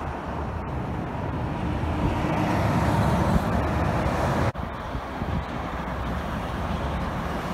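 Freeway road traffic: the steady noise of cars and a truck going past, swelling to its loudest over the first few seconds, breaking off abruptly about halfway through, then carrying on steadily a little quieter.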